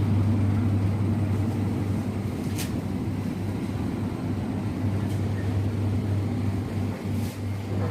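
Steady low hum of shop background noise, with a few faint clicks.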